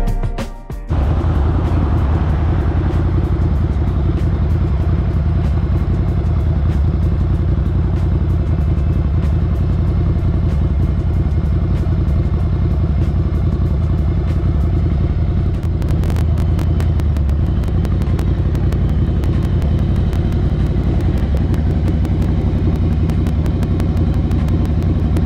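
Ducati Scrambler Icon's 803 cc air-cooled L-twin, fitted with an HP Corse Hydroform exhaust, running steadily at low revs as the bike rolls slowly and then idles.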